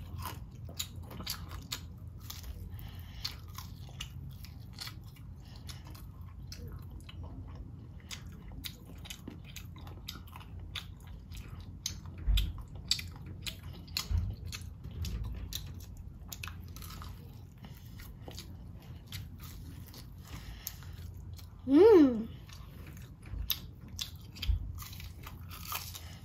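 A child biting and chewing crispy fried sweet potato fritter: a steady run of small crunches. A few dull thumps fall in the middle, and a brief, loud vocal sound stands out near the end.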